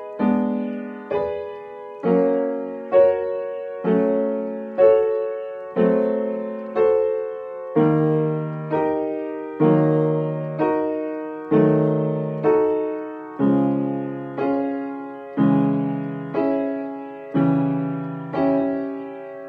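Electronic keyboard with a piano sound playing a slow series of block chords, about one a second, each struck and left to fade. The chords move lower about halfway through, and the last one dies away at the end.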